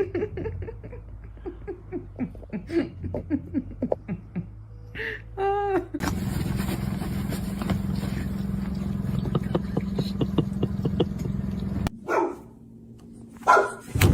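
A dog vocalizing in a run of short yips and whines, with one longer pitched call about five seconds in. A steady hum with faint ticking follows for about six seconds, then more short dog calls near the end.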